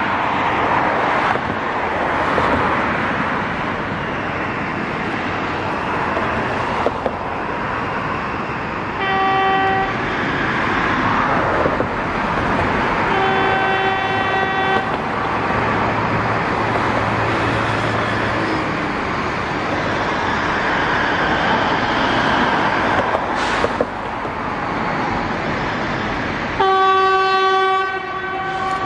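Three blasts of a train horn, each one steady single-pitched tone: a short blast about nine seconds in, a longer one around thirteen to fifteen seconds, and another near the end. They sound over steady, noisy rail-yard background.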